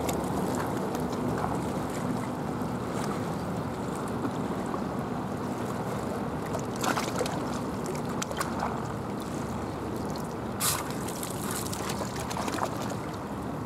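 Steady wind on the microphone over small waves washing against a rocky shore. A few short sharp knocks break through it, the loudest about ten and a half seconds in.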